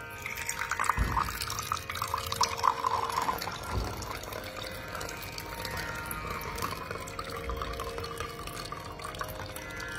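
Water from a kitchen tap pouring into a glass vessel in the sink and splashing as it fills, busier for the first few seconds, then a steadier pour.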